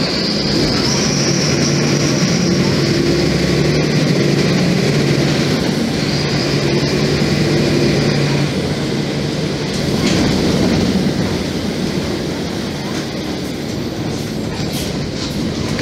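Mercedes-Benz OF-1724 Bluetec 5 bus engine running under way, heard from inside the passenger cabin over road noise and body rattle. A high whine rises about a second in and again around six seconds in, and the engine note eases after about nine seconds.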